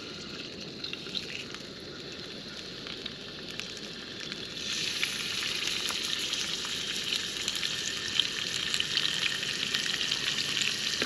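Hot grease sizzling and crackling in a skillet on a small camp stove, a steady hiss with fine pops that grows louder about four and a half seconds in.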